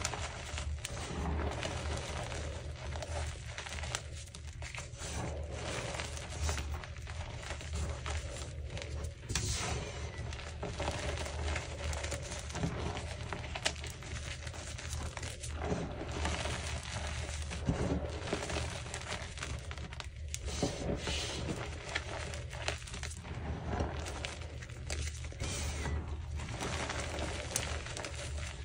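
Hands squeezing and crumbling yellow-dyed gym chalk reforms into loose powder: a continuous run of soft crunches and crumbly crackles. A steady low hum runs underneath.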